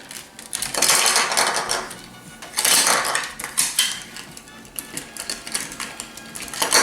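Hard plastic toy parts clicking and clattering as they are handled and snapped together, with several louder bouts of rattling.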